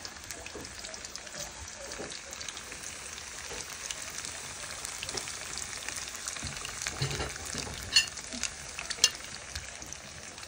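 Chunks of green plantain frying in hot oil in a pan: a steady sizzle with fine crackling, and two sharp clicks at about eight and nine seconds in.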